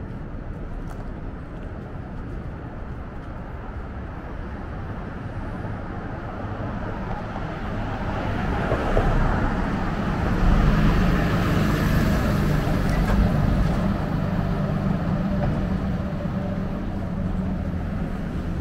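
City street traffic: steady road noise from cars driving past. It builds to its loudest about ten seconds in as a car passes close by with a low engine hum, then slowly eases off.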